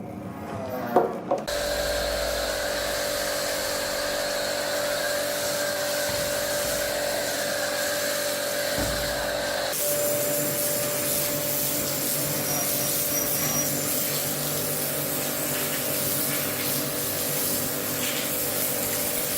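A power tool running steadily with a constant whine. A few knocks come just before it starts, and its sound changes about ten seconds in before it stops at the end.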